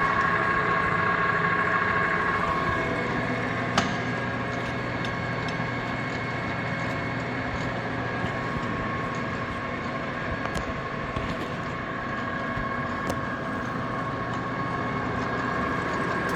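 Jet GH 1440ZX geared-head lathe running under power with the threading feed engaged: a steady gear whine over a low hum, with one sharp click about four seconds in.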